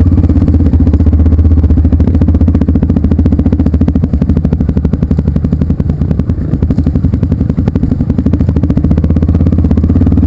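Off-road motorcycle engine running loud and close, a steady rapid pulsing with no change in speed.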